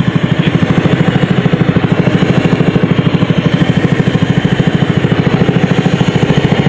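Small engine running steadily at an even idle, with a rapid, regular pulsing of about ten beats a second: the motor driving the air compressor that feeds the diver's hose.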